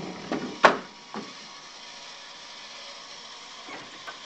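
A single sharp, hard knock, with a few fainter knocks before and after it and a couple more near the end.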